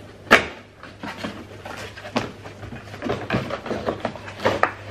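Cardboard box of a Panasonic oral irrigator being opened by hand: a sharp crack of the lid just after the start, then irregular scrapes and rustles as the inner packaging slides out.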